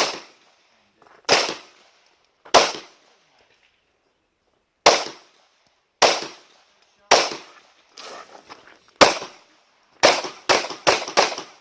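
Rifle shots, about eleven sharp reports, each with a short echoing tail. They come a second or more apart at first, then in a quick string of four, about half a second apart, near the end.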